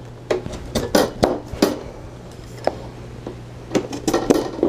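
Metal greenhouse frame bars clinking and knocking together as they are handled and fitted into the connector brackets, in a series of irregular sharp clinks.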